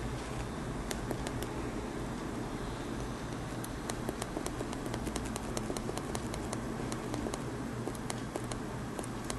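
Many small, irregular clicks of a finger pressing a smartphone's power button over and over, coming faster from about a third of the way in, over a steady low hum. The phone is frozen and does not respond to the button.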